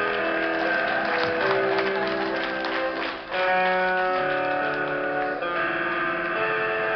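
Electric guitar played live in a slow solo of long, sustained notes that change pitch every second or so, with a brief drop in loudness a little after three seconds in.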